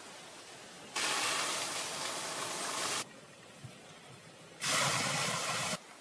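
Two bursts of steady hissing noise that start and stop abruptly: one about two seconds long from about a second in, a shorter one of about a second near the end.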